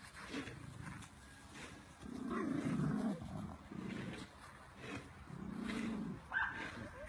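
A dog making low, wavering vocal sounds in three stretches of about a second each, then a short higher-pitched yelp near the end.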